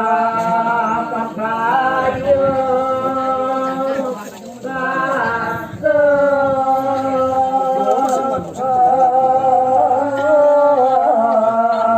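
Voices singing an unaccompanied chant in slow, long held notes that waver in pitch, phrase after phrase, with short breaths between phrases.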